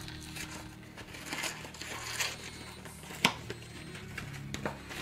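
A plastic bag crinkling and rustling as it is handled and opened, in irregular bursts, with a sharp click about three seconds in.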